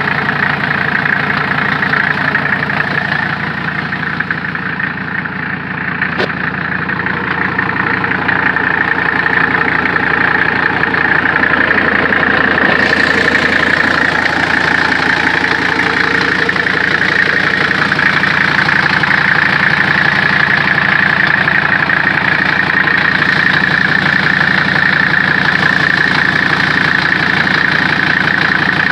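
Mercedes-Benz W123 300D's OM617 five-cylinder turbodiesel idling steadily with its diesel clack, freshly started after new oil cooler lines were fitted. It is running without an exhaust system, only a single pipe off the engine.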